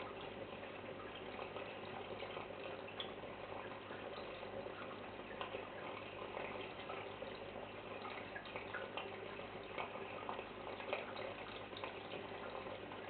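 Aquarium water circulating: a steady fizzing, bubbling hiss scattered with small crackles and ticks, over a steady low hum from the tank's pump.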